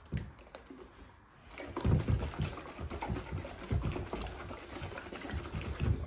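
Water sloshing and swirling in a container as it is set spinning to form a vortex, starting about a second and a half in and continuing unevenly.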